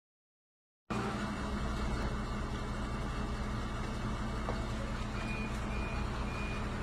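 A vehicle engine idling steadily, a low even hum under a hiss of background noise, cutting in suddenly about a second in after silence.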